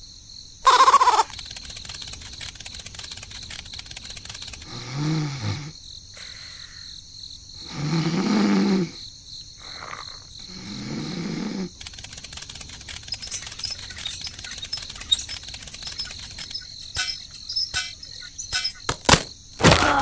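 Cartoon snoring sound effect: three low snores about three seconds apart, after a short loud falling tone about a second in. In the last seconds come rapid clicks and ticks over a steady hiss.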